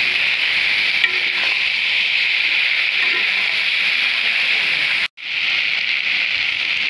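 Eggplant pieces frying in hot oil in a kadai, a steady sizzle, while a metal spatula stirs and turns them. The sizzle breaks off for an instant about five seconds in, then carries on.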